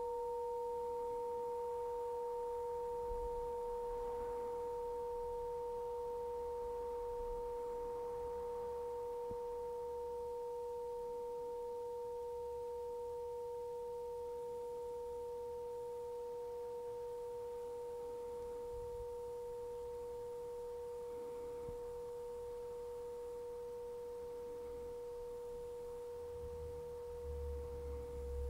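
Brass tubular bell ringing on long after being struck: a steady pure tone with a fainter second tone about an octave above, slowly fading. A low rumble comes in near the end.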